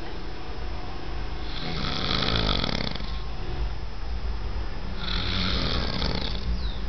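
A sleeping person snoring: two long snores, each about one and a half seconds, roughly three seconds apart.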